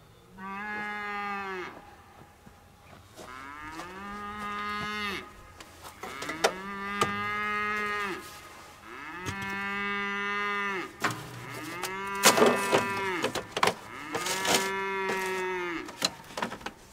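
Cattle mooing: six long calls one after another. A few sharp clicks and short hisses fall between them in the second half.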